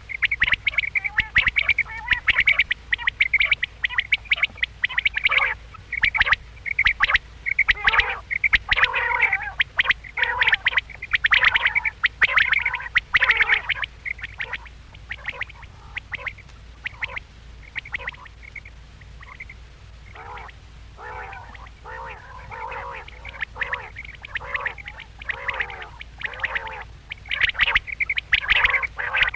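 Quail calling: short calls in quick, dense succession that thin out for a few seconds midway and pick up again near the end, over a faint steady low hum.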